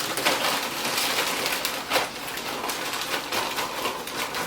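A crinkling plastic chip bag, with chips rattling and crackling as some are poured out of it.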